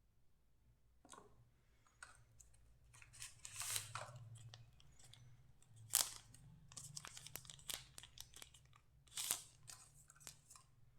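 Packaging of a fitness band being handled and opened by hand: irregular rustling, crinkling and tearing with sharp clicks, loudest about four, six and nine seconds in.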